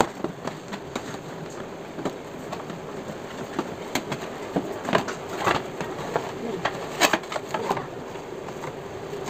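Plastic motorcycle fairing panel and its turn-signal housing being handled and worked loose, giving scattered clicks and knocks over a steady hum.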